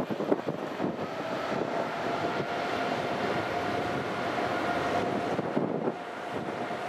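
Boeing 777-200ER's jet engines running at takeoff thrust: a steady jet noise with a held whine that fades near the end, mixed with wind buffeting the microphone.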